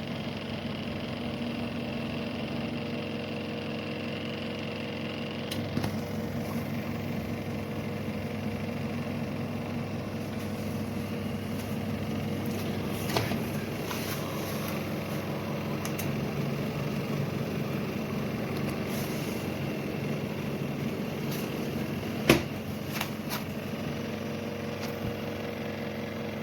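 Small washing machine's electric motor running with a steady hum; the sound shifts about five and a half seconds in, and there are a few sharp clicks, one near the end.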